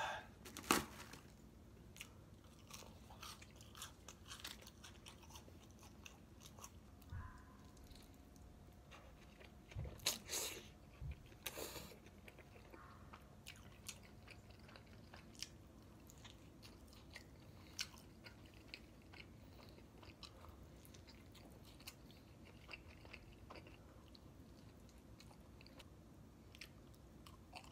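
Close-miked chewing and biting of pizza and crispy boneless fried chicken, with crunches and small wet mouth clicks. A sharp knock comes just under a second in, and a louder spell of chewing about ten seconds in.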